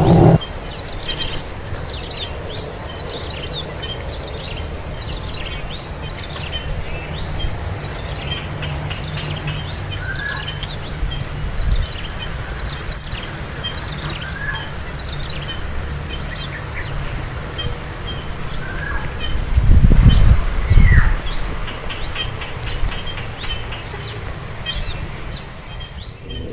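Small birds chirping repeatedly in short notes over a steady high-pitched insect buzz. About twenty seconds in there are two loud, low rumbling thumps.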